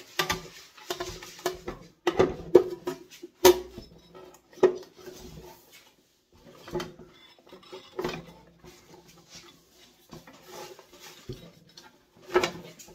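Irregular metal clunks and rattles as an electric motor is worked back into the cast metal housing of a Shopsmith Model 510 headstock and its belt is fitted over the pulleys. Several sharp knocks with a short ring stand out, the loudest about three and a half seconds in and again near the end.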